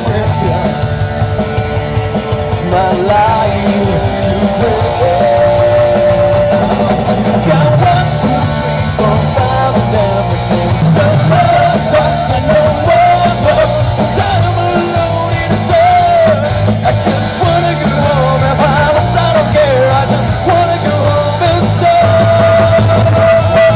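A student rock band playing live: a singer carrying a wavering melody over bass, guitar and cymbals, loud and continuous.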